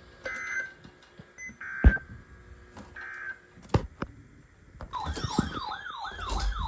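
A few short electronic beeps and clicks, then from about five seconds in an electronic alert siren warbling in quick rising sweeps, about three a second. It sounds as a new weather alert, a flash flood warning, comes in.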